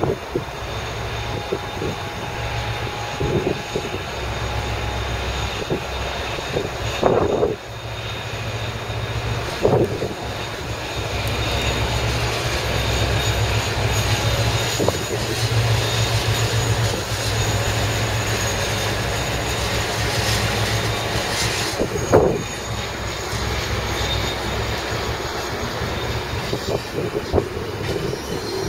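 Irish Rail 201 class diesel locomotive (EMD JT42HCW, 12-cylinder two-stroke EMD 710 engine) pulling away under power with a passenger train, its engine drone growing louder as it passes about halfway through, with a steady high whine above it. A few brief bumps come through the drone.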